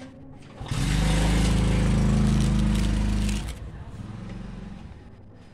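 A low-pitched engine or motor runs loudly and steadily for about three seconds, starting and cutting off abruptly, then a fainter hum trails away.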